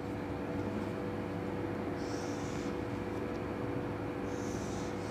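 Felt-tip marker drawn across a whiteboard in two short strokes, heard as brief high hisses, over a steady electrical room hum.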